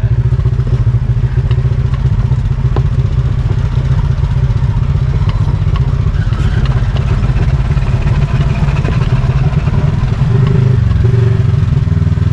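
Polaris RZR 1000 four-seat UTV's twin-cylinder engine running as it drives along a dirt trail, with scattered knocks and rattles from the vehicle over rough ground. It gets a little louder about ten seconds in.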